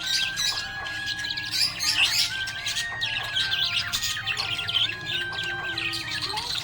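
Budgerigar chattering and chirping rapidly over background music with held, stepping melody notes.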